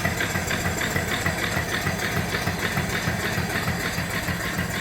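Boiler-mounted 3 hp steam engine with a 3-inch bore and 4-inch stroke running steadily, its exhaust chuffing up the stack in a fast, even beat.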